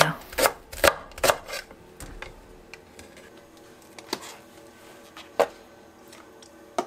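A kitchen knife slicing a green onion on a wooden cutting board: about four quick chops in the first second and a half. After that come a few scattered light knocks and clicks as a plastic tofu tray is handled.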